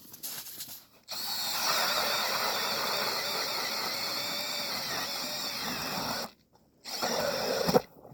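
Powered ice auger drilling through lake ice, running steadily for about five seconds, stopping, then a shorter run of about a second.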